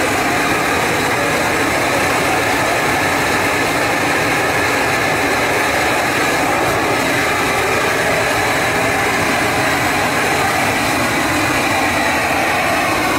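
Hose-fed gas torch burner running with a steady rushing noise, its flame jet blowing hot air into the mouth of a large unmanned hot-air balloon to inflate it.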